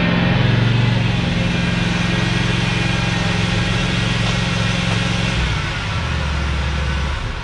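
A motor or engine running steadily with a low hum, shifting to a lower pitch about five and a half seconds in.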